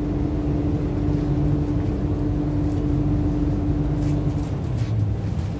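Hong Kong MTR Q-Train, a Hyundai Rotem electric multiple unit, pulling away from a station platform, heard from inside the car. There is a low rumble with a steady hum that stops about four and a half seconds in.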